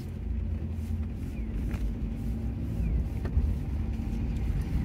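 Low, steady car-cabin rumble of engine and road noise, with a faint steady hum and a few light clicks and squeaks.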